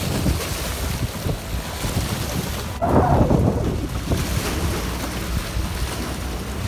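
Small waves washing and splashing against the rocks of a stone breakwater, with wind buffeting the microphone. A louder surge of water comes in about three seconds in.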